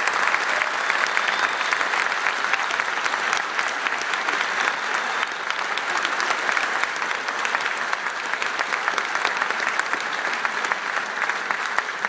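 A large audience applauding, a dense, steady clatter of many hands clapping.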